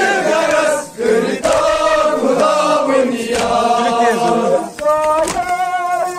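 Several voices chanting together in long held notes, with two brief pauses for breath.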